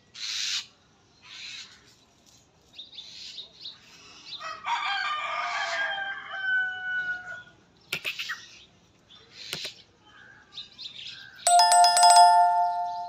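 A rooster crows once, a long call of about three seconds with falling pitch, among short scratchy rustles and a couple of sharp clicks. Near the end a loud electronic chime rings steadily for about two seconds, the sound effect of a 'Subscribe' button animation.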